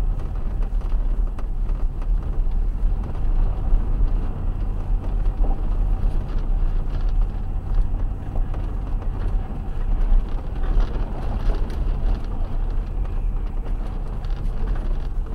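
Car driving, heard from inside the cabin through a dashcam's microphone: a steady low rumble of engine and road noise.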